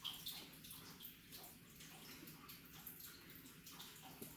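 Faint trickling and dripping of water in a turtle tank, with small scattered ticks over a low steady hum.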